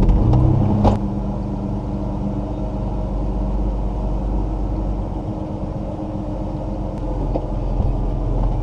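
Vehicle engine idling steadily, with two sharp knocks about a second in.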